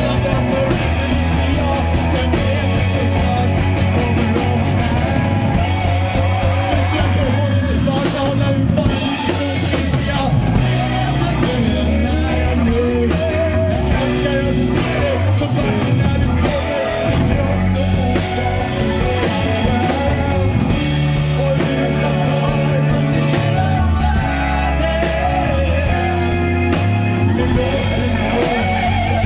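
Live rock band playing an instrumental passage between sung verses: drum kit and bass keep a steady beat under a wavering lead melody.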